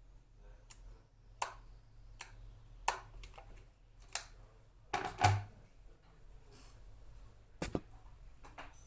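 An electric kettle being handled: a series of about ten sharp clicks and knocks at irregular intervals, the loudest a close pair about five seconds in.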